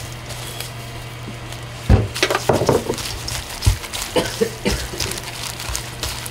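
A spatula scraping and stirring through raw, chili-dressed small squid in a stainless steel bowl. It starts about two seconds in, with irregular wet scrapes and a couple of knocks against the bowl. A steady low electrical hum runs underneath.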